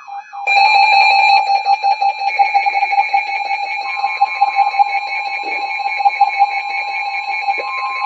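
Several emergency weather alert radios sounding their alarms at once for a flash flood warning: a rapid beeping tone, joined about half a second in by louder, higher alarm tones, and about four seconds in by a steady warning tone.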